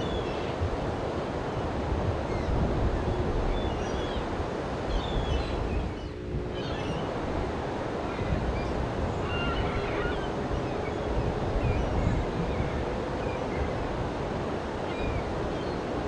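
Small waves breaking and washing onto a sandy beach: a steady rush of surf, with faint high chirps now and then.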